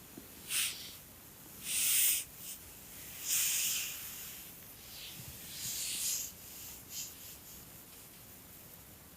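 A sleeping dog breathing noisily through its nose: about six irregular, hissy breaths over several seconds, the loudest about two and three and a half seconds in.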